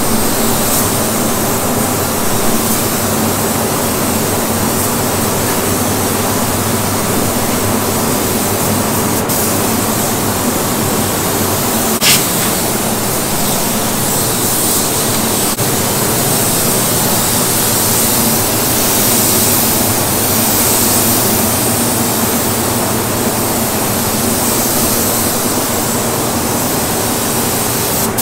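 Steady hiss of compressed air from a gravity-feed spray gun laying primer on a truck cab, over the rush and hum of the paint booth's ventilation. A few light clicks partway through.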